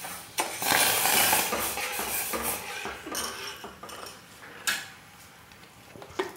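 Steel spoon tipping sugar into milk in a steel saucepan and stirring, scraping and clinking against the pan for a few seconds, then a single sharp clink a little past halfway and a few light taps near the end.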